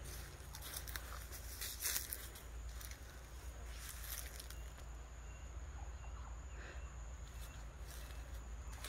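Footsteps crunching and rustling through dry leaf litter on a forest path, with scattered sharper crackles, strongest about two seconds in, over a low steady rumble of handheld-camera handling.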